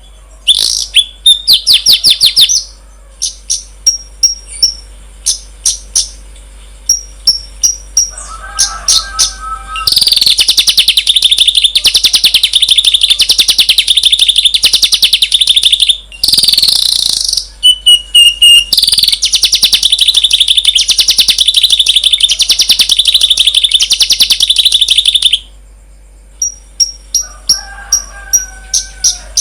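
Recorded songbird calls from several kinds of bird layered together, a masteran track for training caged songbirds: sharp high chirps repeated in quick runs, then a long, rapid buzzing trill that starts about ten seconds in and stops abruptly a few seconds before the end, with lower whistled phrases in between.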